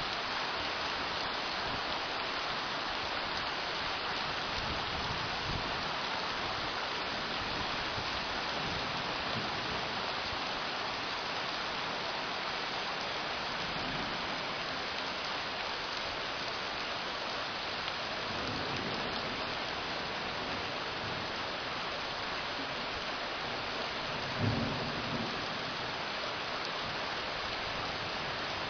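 Steady rain falling, a continuous even hiss, with a short low rumble about three-quarters of the way through.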